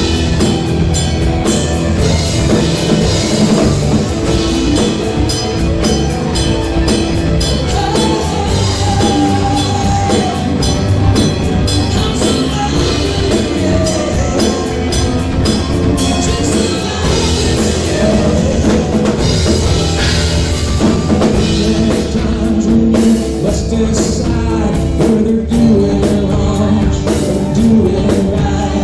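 Rock band music with a drum kit and electric guitar, and a voice singing in places.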